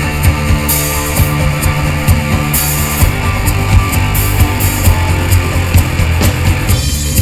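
Live rock band playing an instrumental passage: distorted electric guitar, electric bass and a drum kit with steady beats and cymbal crashes. The middle of the sound thins out near the end, leaving mostly bass and drums.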